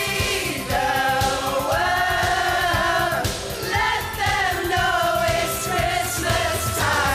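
Group of women singing a pop song in unison over a backing track, with several long held notes.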